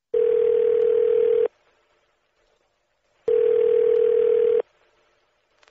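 Telephone ringing tone heard down the line by the caller: two long, steady, low beeps, each about 1.3 s, with a pause of about 2 s between them, with the muffled sound of a phone line.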